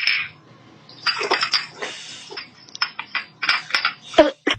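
A short hiss, then a quick, irregular run of clattering knocks and clicks, like hard objects being knocked about.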